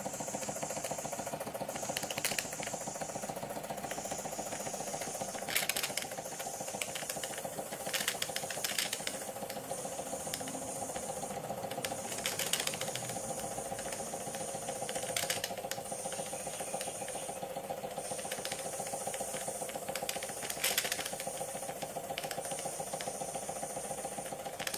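Wilesco model steam engine with a vertical boiler running steadily at speed, a rapid even mechanical patter, with a high hiss that comes and goes every few seconds.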